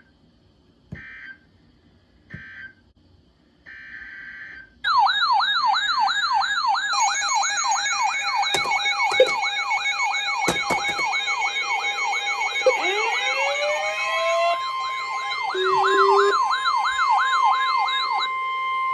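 An emergency alert starts with three short buzzy digital header bursts. Then electronic siren tones play: several wailing and yelping sirens layered over steady alert tones, with a few rising sweeps. Near the end they cut to a single steady tone.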